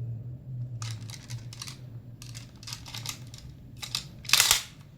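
Irregular plastic clicks and rattles as a toy transformation device is handled, with a louder rustling burst near the end, over a faint steady hum.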